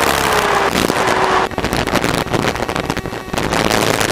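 Inside the cabin of a Robin DR400 light aircraft in flight: its piston engine and propeller drone steadily under loud rushing airflow, with gusty, crackling wind noise on the microphone.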